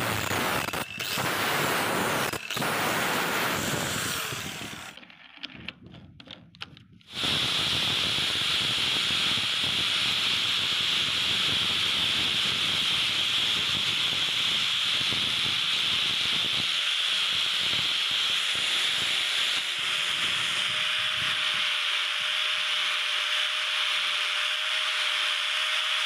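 Angle grinder with a sanding pad running against the steel jaws of a pair of pliers. It is rough and broken up for the first few seconds, drops away briefly, then from about seven seconds runs on as a steady, high-pitched grind of the pad on the metal.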